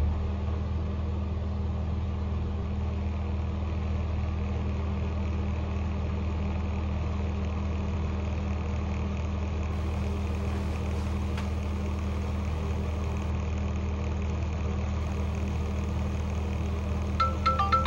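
A steady low droning hum with a few fixed low tones. About a second before the end, an iPhone's marimba ringtone starts to play over it: an incoming call.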